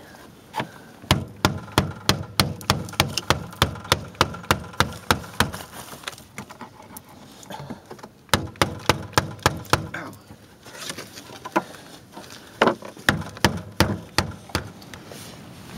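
Repeated blows pounding a new plastic slider (Hyfax) along a snowmobile's skid rail, about three a second. Two runs of strikes with a pause between, then a few scattered blows near the end.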